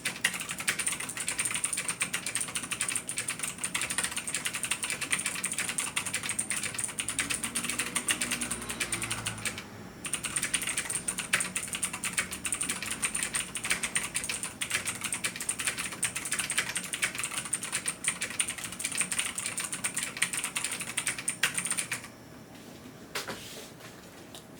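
Typing on a Ducky One 2 RGB mechanical keyboard with clicky Razer Green switches: a dense, fast run of sharp key clicks with a short pause about ten seconds in. The typing stops near the end, leaving only a couple of scattered keystrokes.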